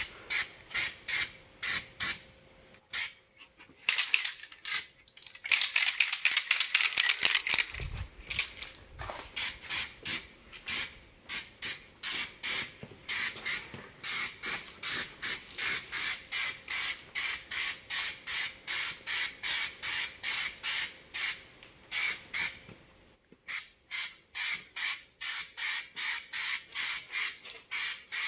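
Aerosol can of Raptor two-part bed liner hissing in short, rapid bursts, about two a second, as it is sprayed in quick passes, with a longer continuous spray roughly five to eight seconds in.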